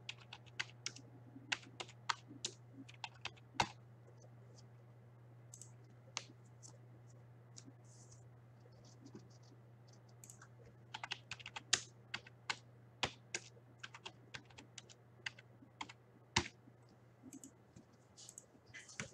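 Typing on a computer keyboard: faint, irregular keystrokes in short runs with pauses, over a low steady hum.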